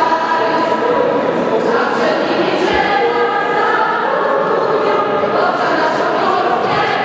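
A choir of teenage voices, mostly girls, singing together in one steady, unbroken line.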